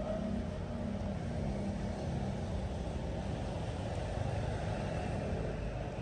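A steady low rumble of outdoor background noise, with no clear single event.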